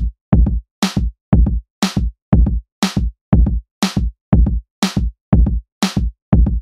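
Electronic background music: a steady drum-machine beat of about two hits a second, deep kick thumps alternating with bright snare or hi-hat hits, with short silent gaps between the hits.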